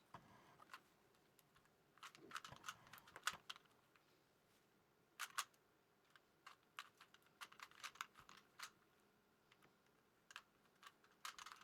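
Faint, irregular clicking and clacking of a plastic 3x3 Rubik's Cube being turned rapidly, with quick runs of clicks and short gaps between them.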